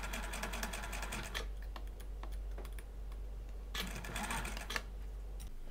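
Domestic sewing machine stitching lace onto fabric, its needle running in fast, even strokes over a low motor hum. It slows to a few separate stitches in the middle, runs fast again briefly about four seconds in, and the motor stops near the end.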